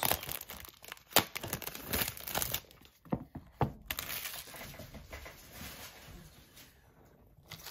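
Clear plastic shrink-wrap being peeled and torn off a cardboard box, crinkling and crackling with several sharp snaps. About four seconds in the crackling eases to a faint rustle that fades out.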